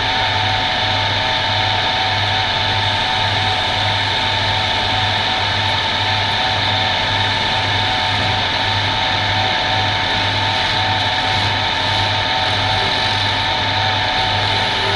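An electric woodworking power tool running steadily, with a constant whine and a low hum that pulses about twice a second.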